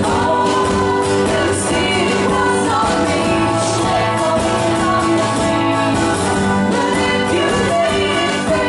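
A band playing a song live, with guitar and singing.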